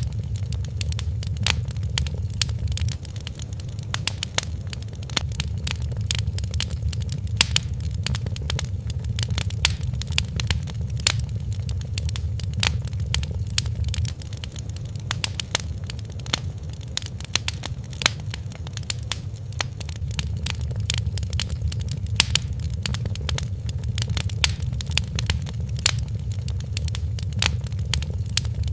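Wood fire crackling in a fireplace: many irregular sharp pops each second over a steady low rumble of the flames.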